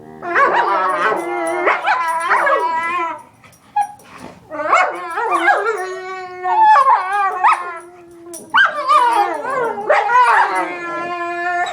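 A dog making drawn-out, wavering howling calls mixed with yips, in three long bouts with short breaks about three and eight seconds in.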